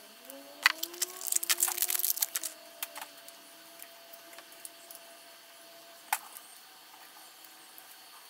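Small metal clicks and scrapes of a hex screwdriver and motor screws being worked on an FPV drone's arm: a quick run of clicks for about two seconds near the start, then a single click about six seconds in.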